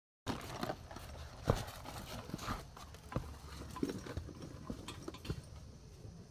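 A hiker's footsteps on a steep mountain trail: irregular knocks and scuffs of boots on rock and earth, roughly one every second, over low handling rumble.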